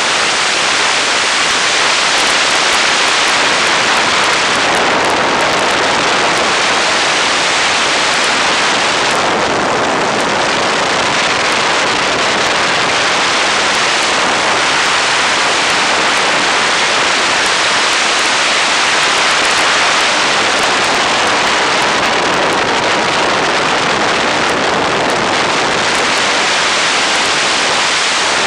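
Loud, steady rush of wind over the open cockpit of a 1942 Boeing Stearman biplane in flight, with the engine running beneath it; the hiss eases slightly now and then.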